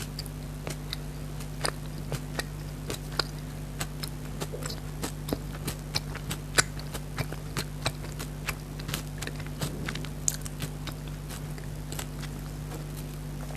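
Close-up mouth sounds of someone biting and chewing fruit jelly: irregular small clicks and smacks, several a second, over a steady low hum.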